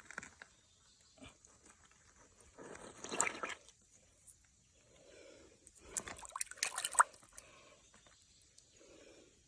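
Shallow creek water splashing and sloshing, in two louder bursts about three seconds in and again around six to seven seconds in.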